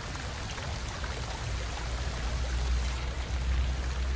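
Water pouring and running steadily, an even rushing wash with a low hum underneath that grows a little stronger about halfway through.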